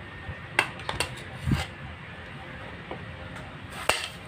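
Metal spoon clinking against ceramic plates and bowls while food is served: a few sharp clinks about half a second to a second in, a dull knock around a second and a half, and another clink near the end.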